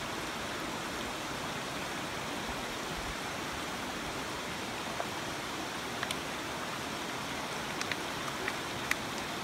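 Steady rush of flowing river water, with a few faint short clicks in the second half.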